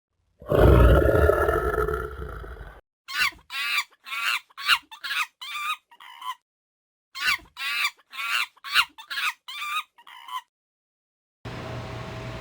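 Chicken clucking in two runs of short, quick calls, about eight to a run, with a brief pause between them. A loud low sound lasting about two seconds comes before them.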